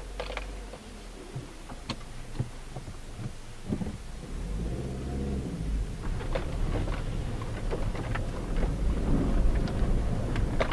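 Cabin sound of a Hyundai Tucson JM with the 2.0 petrol four-cylinder, driving on a rough dirt road. A low engine and tyre rumble runs under scattered knocks and rattles from bumps and stones, and the engine note shifts a few seconds in. It grows louder as the car picks up speed.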